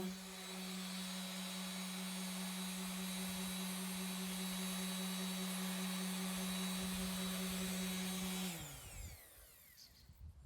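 Electric sander running steadily with a hum, sanding body filler over a fibreglass patch. It is switched off about eight and a half seconds in and winds down, its pitch falling.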